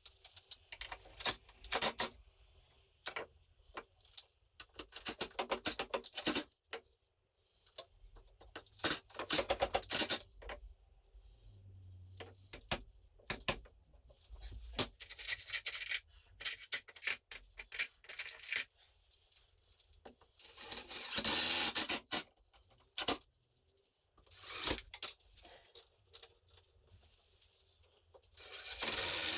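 Hands-on work with tools and materials: irregular scraping, rubbing and sharp clicks and knocks, with a steadier, louder noise about two thirds of the way through and another starting just before the end.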